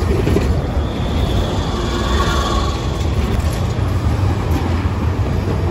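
Trams running on city street track: a steady low rumble of wheels on rails, with a faint squeal of wheels on rail rising and fading about two seconds in.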